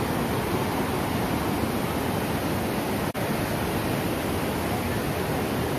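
Steady rushing roar of a waterfall, even and unbroken except for a momentary dropout about halfway through.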